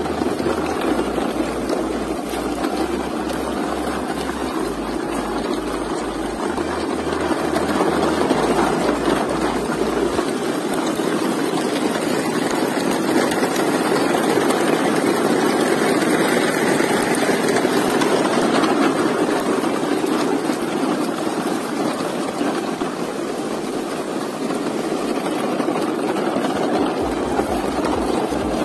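A convoy of plastic toy trucks rolling along a dirt path, making a steady rumble of wheels and rattling loads, a little louder from about eight seconds in.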